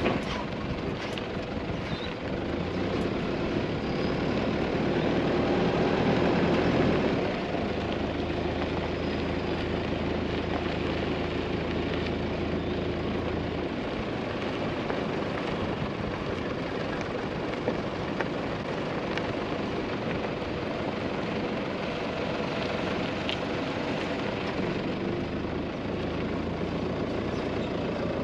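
A vehicle driving, its engine running steadily under road noise, with the engine note shifting a few times.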